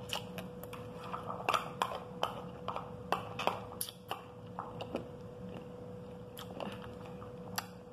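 Metal spoon clicking against a glass plate while pomegranate arils and their hard seeds are chewed and crunched: sharp, irregular clicks, most of them in the first half.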